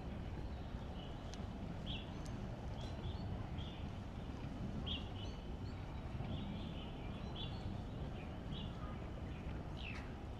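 Birds chirping with short calls scattered every second or so, over a steady low rumble of outdoor ambience.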